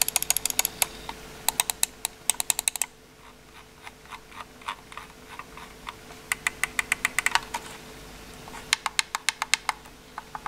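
Corsair Dark Core RGB PRO gaming mouse buttons clicking in several quick runs, with short pauses between them and softer clicks in the middle. The presses include the main buttons with Omron switches and the small buttons beside the scroll wheel.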